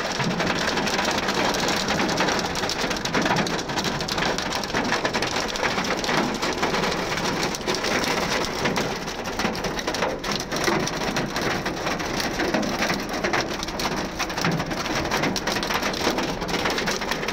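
Hail and heavy rain pelting down on a road and cars, a dense steady clatter of countless small impacts.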